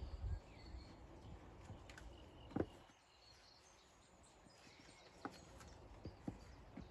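Stones knocking against each other as a dry stone wall is worked by hand: a few scattered knocks, the loudest about two and a half seconds in, with faint bird chirps.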